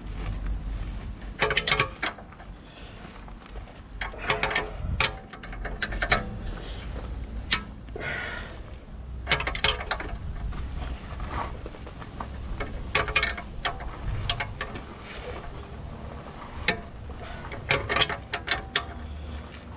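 Ratchet spanner clicking in short bursts as it is worked back and forth, winding the nut along a threaded rod to draw out the tight rear lower suspension bush.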